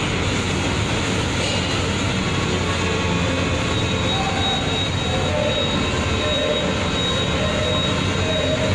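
Orbital sander running steadily with a high whine, dry-sanding a car's body panel.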